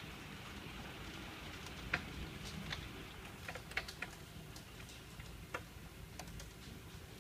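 Hailstorm with heavy rain: a steady hiss of falling rain with irregular sharp clicks of hailstones striking hard surfaces.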